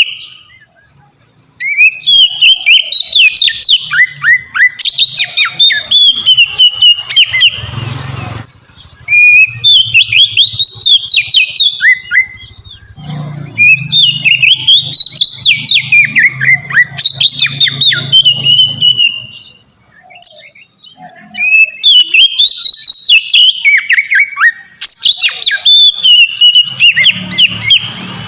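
Oriental magpie-robin (kacer) singing the long, open 'ngeplong' song: loud phrases of rapid, sweeping whistled notes, delivered in four bouts with short pauses between them.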